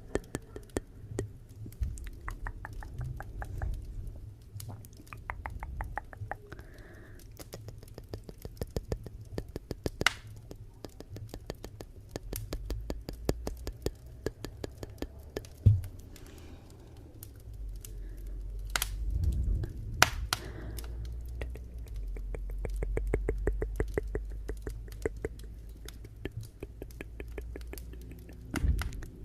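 Wood fire in a fireplace crackling, dense small irregular pops over a low rumble of the flames, with a couple of sharper, louder pops just past halfway.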